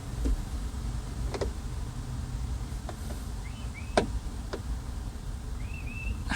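About five light, sharp clicks and taps of small parts and screws being handled, the loudest about four seconds in, over a steady low rumble. There are two brief high chirps, one past halfway and one near the end.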